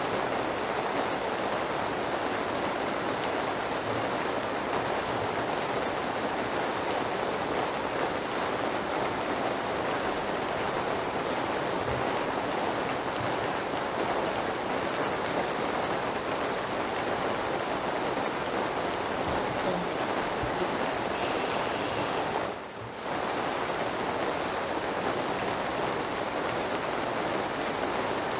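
Steady rain sound, an even rushing hiss that briefly drops away about three-quarters of the way through.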